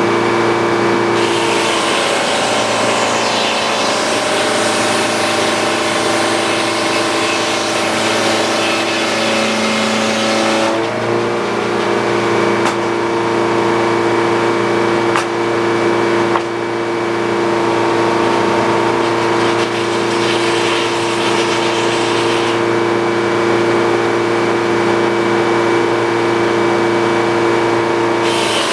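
Engine-driven sawmill running steadily with the blade sawing through a wooden cant. A hiss of cutting comes in about a second in and stops near eleven seconds, then comes again from about sixteen to twenty-two seconds. During the first cut the engine's pitch sags a little under the load.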